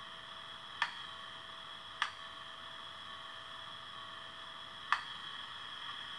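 Three sharp switch clicks from a Roco D345 model locomotive's ESU sound decoder, about a second, two seconds and five seconds in, as its start-up lamp test switches the lights. Under them, a faint steady electrical whine and hiss comes from the small speaker.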